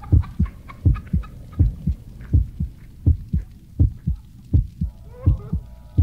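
Human heartbeat, a steady lub-dub double thump at about 85 beats a minute. Near the end a held chord of steady tones comes in over it.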